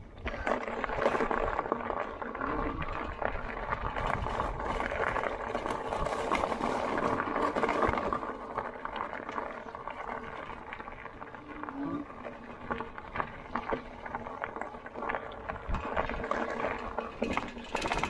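Tyres of a Lectric XP electric fat-tyre bike rolling over rough dirt: a steady gritty rolling noise with many small clicks and rattles.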